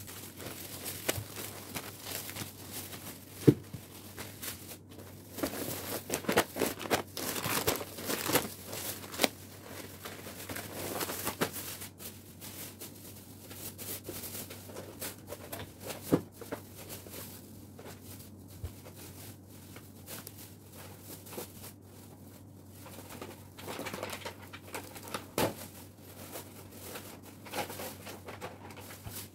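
Plastic grocery bags rustling and crinkling as groceries are unpacked, in irregular bursts, with a few sharp knocks of items being set down on a table.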